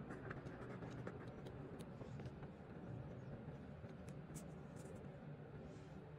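Faint scratching and scattered light ticks as old gasket material is scraped and picked off a 110cc engine's cylinder mating surface.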